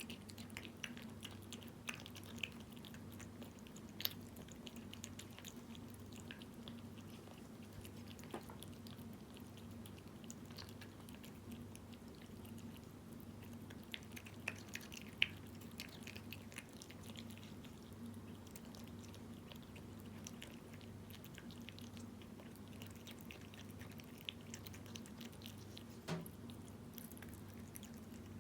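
Cat eating Felix chicken-in-jelly wet food: soft, irregular chewing with small wet clicks and smacks, a few sharper ones among them. A steady low hum runs underneath.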